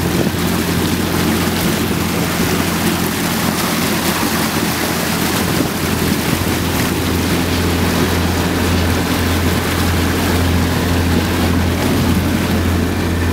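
A sailboat's inboard engine running steadily, a low even hum under the rush of churning wake water at the stern, with wind noise on the microphone.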